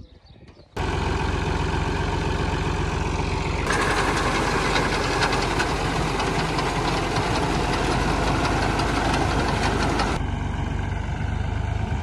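Fiat 480 tractor's three-cylinder diesel engine running steadily while its front-mounted reaper cuts wheat. The sound comes in abruptly about a second in, and from about four seconds in until near the end a louder, denser clatter of rapid ticks from the reciprocating cutter bar rides on top.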